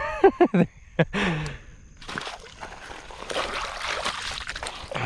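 Hands splashing and sloshing in shallow lake water, rinsing, starting about two seconds in after a few spoken words.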